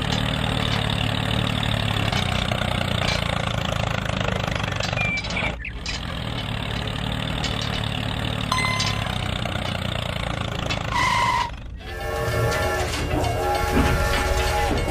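Tractor engine running steadily, broken off briefly twice, with a short beep about eleven seconds in. Then a toy train's electronic sound chip plays several held tones together near the end.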